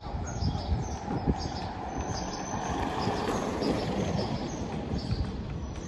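Wind buffeting the microphone over a steady outdoor rumble, with short high-pitched bird calls repeating every half second or so.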